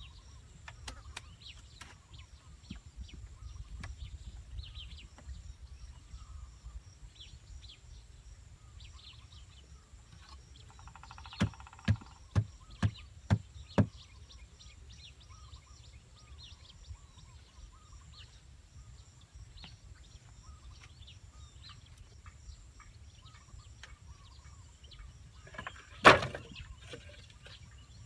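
Small birds chirping on and off over a low steady background. Around the middle come about five sharp knocks, roughly two a second, and near the end one much louder knock: hand-tool blows on wood.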